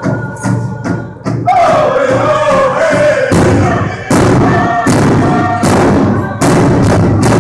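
Menominee tribal song: a big drum struck in a steady beat of about three strokes a second by a seated circle of singers. A lead voice enters high about a second and a half in and falls in pitch, and the group joins in louder from about three seconds in.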